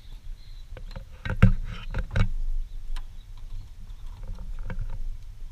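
A cluster of knocks and low thumps on a wooden suspension bridge, loudest about a second and a half in, then a few lighter clicks.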